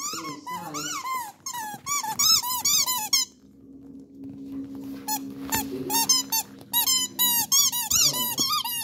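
A dog chewing a squeaky toy ball, making it squeak over and over in quick, short rise-and-fall squeaks. The squeaking stops for about two seconds partway through, then starts again.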